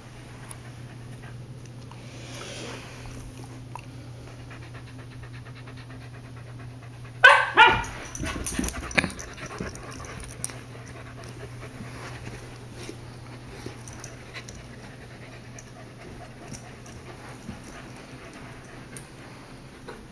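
Husky puppies play-fighting: panting and scuffling, with a short burst of loud yips about seven seconds in, followed by scattered small clicks and rustles.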